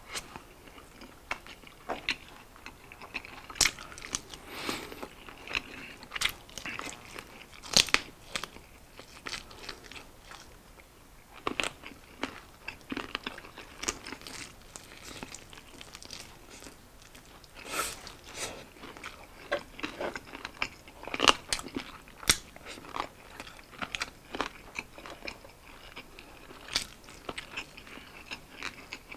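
Close-miked eating of saucy fried chicken wings: irregular crisp crunches of the skin and wet chewing and lip sounds, with a few much louder crunches scattered through.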